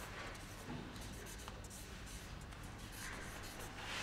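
Felt-tip marker writing on flip-chart paper: faint strokes of the pen tip on the paper as words are written.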